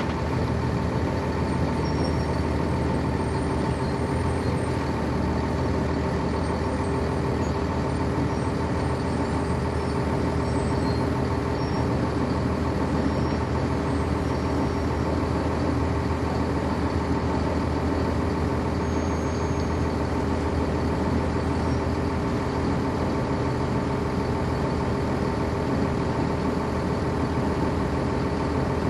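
The Cummins ISC inline-six diesel of a 1999 NovaBus RTS transit bus running steadily, heard from on board the bus. Its drone holds one pitch throughout, with no revving or gear changes.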